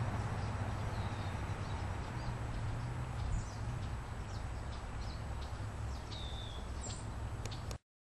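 Songbirds calling: scattered short, high chips and two brief falling whistled notes, over a steady low rumble. The sound cuts off abruptly just before the end.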